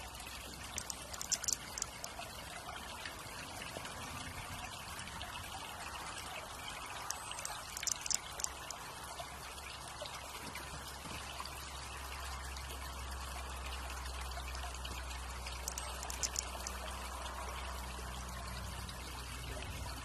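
Steady trickle of flowing water, with three short clusters of high thin ticks spread through it.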